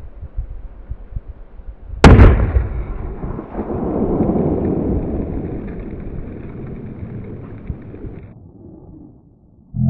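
A firecracker exploding under an upturned metal cooking pot: one loud bang about two seconds in, followed by a long rumbling echo that fades over several seconds and then cuts off. Before the bang there is only wind noise on the microphone.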